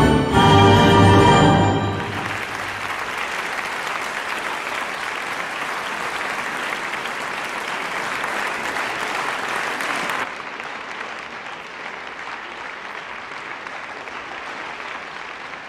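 Orchestral music ends about two seconds in, and an audience applauds. About ten seconds in the applause turns quieter and duller.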